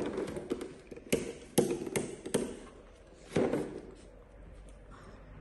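A handful of sharp, separate taps or knocks on a hard surface, about five, spread irregularly over the first three and a half seconds.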